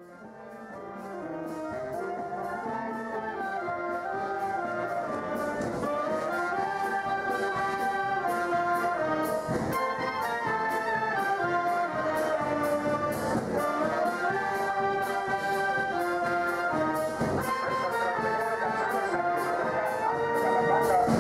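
A wind band of clarinets, saxophones and brass, sousaphones among them, playing a tune with a steady beat. It fades in over the first couple of seconds.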